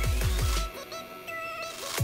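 Background electronic music with a fast, pulsing bass that drops out about two-thirds of a second in, leaving held higher notes, before the bass comes back at the end.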